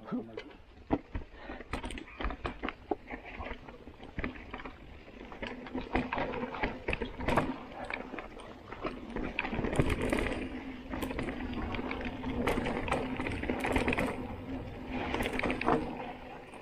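Mountain bike riding down a dirt forest trail: tyres rolling and crunching over dirt and leaves, with the bike's chain and frame rattling and knocking sharply over bumps. It gets louder and busier from about six seconds in as the speed picks up.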